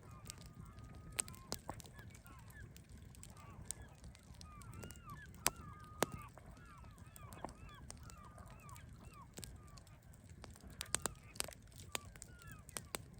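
Bonfire crackling, with sharp irregular pops, the loudest about halfway through and a cluster near the end. A flock of birds keeps up short honking calls throughout, over a steady low rumble.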